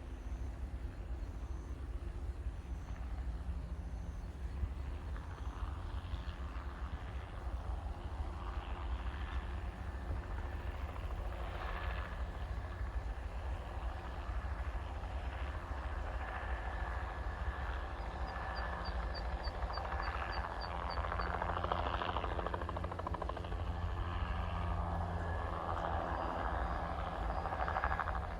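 Crop-spraying helicopter flying, its rotor making a steady low beat with engine noise above it, growing somewhat louder in the second half.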